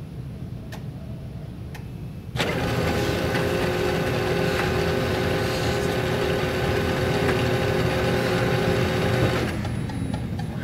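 Two clicks, then an office printer starts up about two seconds in and runs with a steady mechanical whir and hum, stopping about two-thirds of a second before the page is taken.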